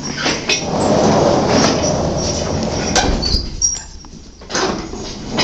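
A person's long, breathy, exaggerated yawn lasting about three seconds. A second breathy sound starts near the end.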